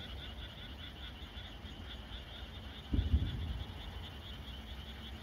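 Frogs calling in a steady, rapidly pulsing chorus. A distant firework shell bursts with a low boom about three seconds in.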